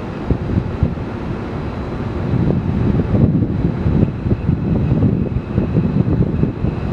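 Wind rumbling and buffeting on the microphone, gusting harder from about two seconds in.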